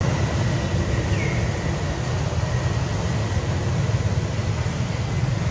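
Steady low outdoor rumble with a thin high steady tone over it, and a brief falling chirp about a second in.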